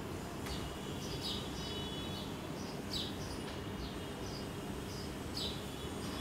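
Small birds chirping outdoors: short, high notes that slide down, repeated every half second or so, over steady low background noise.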